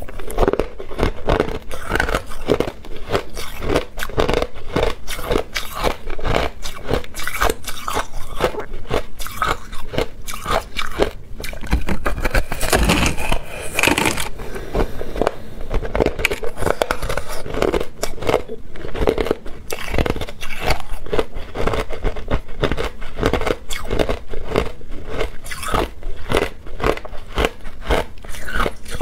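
Crushed ice being bitten and chewed: a dense, continuous run of crisp crunches and crackles, several a second.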